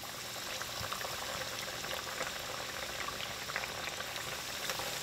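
Battered mahi pieces with a crushed-chip crust sizzling and bubbling in hot peanut oil in a frying pan: a steady crackling hiss dotted with small pops.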